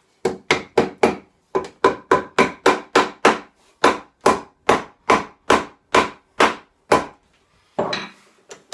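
Wooden tongue-and-groove plane cutting along a board edge in quick short strokes, about three a second and some twenty in a row, each a sharp scraping rasp of the iron in the wood; the strokes stop about seven seconds in.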